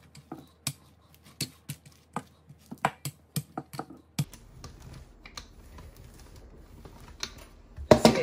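Stainless steel rolling pin rolling back and forth over dough on a marble counter, with irregular sharp clicks and taps for the first few seconds. Then it goes quieter, and a louder knock and rustle comes near the end.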